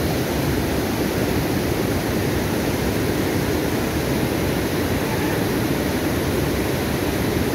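Shallow, fast-flowing floodwater rushing steadily over a stream bed, a constant churning noise.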